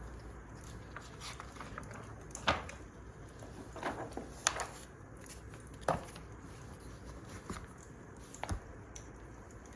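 Wood fire crackling: a steady low hiss with a handful of sharp pops and snaps, the loudest about two and a half seconds in.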